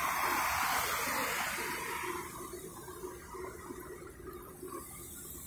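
A car passing on the road: its tyre and road noise fades away over the first two seconds, leaving a quieter street background.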